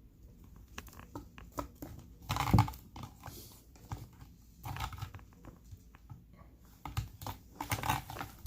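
A cat chewing and crunching on a small bird: irregular wet clicks and crackles, loudest about two and a half seconds in and again near the end.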